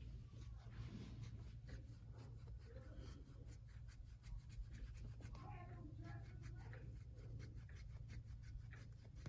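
Faint, rapid scratchy rubbing strokes as a small model locomotive wheel is scrubbed clean by hand, over a steady low hum.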